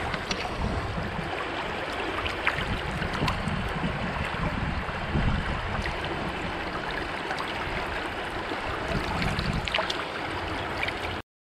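Shallow river flowing over cobbles at the water's edge: a steady rushing with small splashes and trickles, stopping abruptly near the end.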